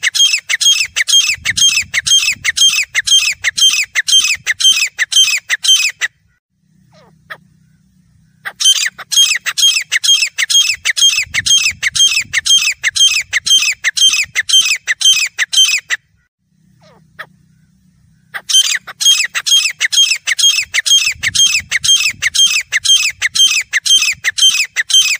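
Grey francolin calling: loud, shrill notes repeated rapidly at about three a second, in three long bouts separated by pauses of about two seconds.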